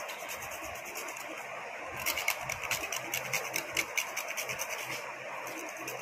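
A whole nutmeg rasped on a small metal hand grater in quick, even strokes, about four or five a second. The strokes get louder from about two seconds in and ease off again near the end.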